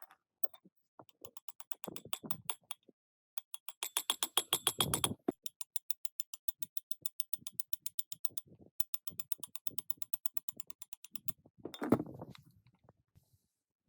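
Fast, even clicking, roughly ten clicks a second, loudest in the middle and stopping about eleven seconds in, followed by one louder knock near the end.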